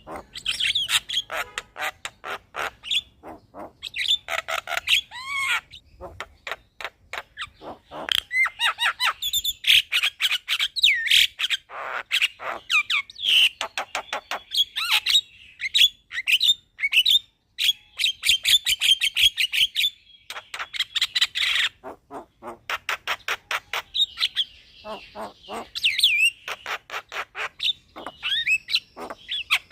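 Javan myna singing a long, varied song: fast runs of clicking, rattling notes mixed with whistles and warbles, broken by brief pauses.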